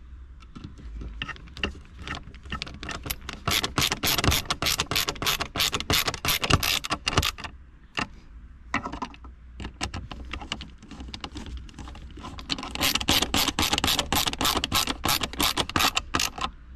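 Hand screwdriver driving screws into a plastic armrest mounting bracket: two spells of rapid clicking, each a few seconds long, as one screw after another is turned down.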